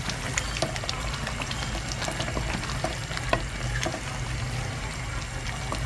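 Chicken in a thick spice gravy simmering and bubbling in a wok while a wooden spatula stirs it, with many small pops and scrapes over a steady low hum.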